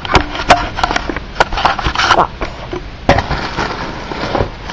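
Scissors cutting and tearing into a cardboard box: irregular crunching snips and cracks of stiff cardboard, a dozen or so in a few seconds.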